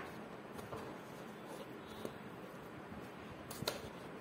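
Cardboard smartwatch box being handled and opened, with light taps and rustles and a sharper double click about three and a half seconds in as the inner box is worked out of its sleeve.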